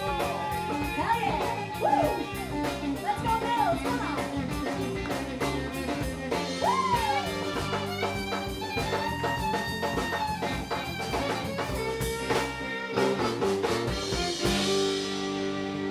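Live country band playing: bowed fiddle and electric guitar over a drum-kit beat.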